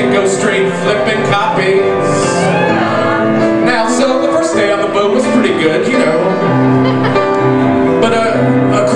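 Live piano music with a man singing.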